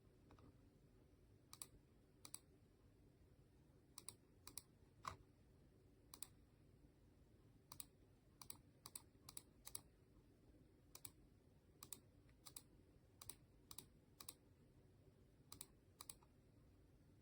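Faint, sharp clicks of buttons being pressed one at a time, about two dozen at an uneven pace, over a low steady background hum.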